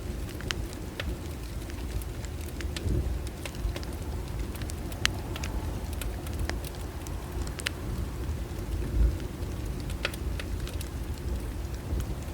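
Bonfire burning: a steady low rumble with irregular sharp crackles and pops of the burning wood, a low thump about nine seconds in.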